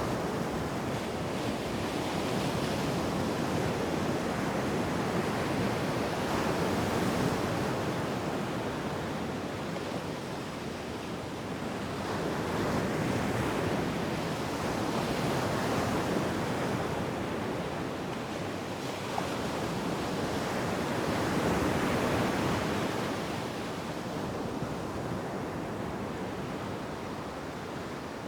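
Ocean surf washing onto a beach, a continuous rush of breaking waves that swells and eases every several seconds.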